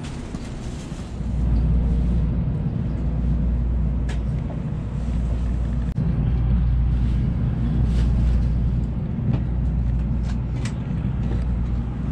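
Steady low rumble inside a Shinkansen bullet train car, starting about a second in, with a few light clicks on top.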